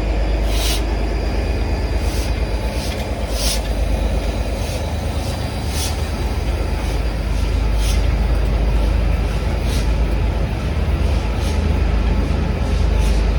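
Train running past: a steady heavy rumble, with sharp clicks every second or so and a high wheel squeal sliding down and fading in the opening moment.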